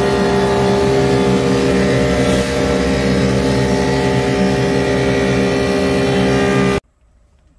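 Woodmaster 725PM 25-inch planer with a helical cutterhead running, planing a board: a loud, steady machine drone with a strong hum tone. The sound cuts off abruptly near the end.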